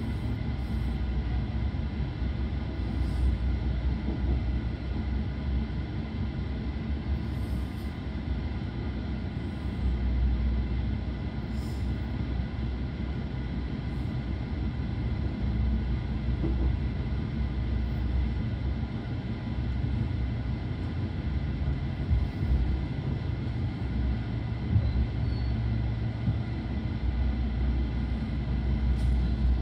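Steady low rumble of a Belgian Railways I10 passenger coach rolling along the track, heard from inside the coach.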